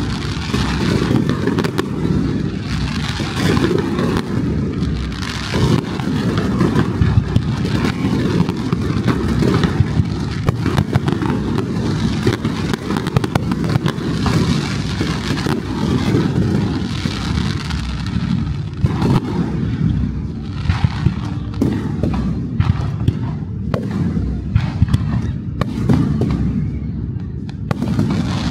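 Fireworks display: aerial shells bursting in a dense, continuous run of booms and crackles. In the second half, sharper separate bangs stand out from the rumble.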